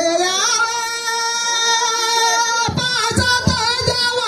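A singer holds one long, high note of a Nagpuri damkach folk song. About two and a half seconds in, the held note breaks off and a few hand-drum strokes come in under the singing.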